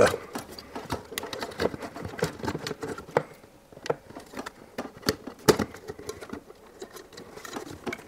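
Irregular plastic clicks, taps and knocks of a dishwasher motor pump unit being handled and slid onto its pump housing, with a few sharper knocks around three and five seconds in.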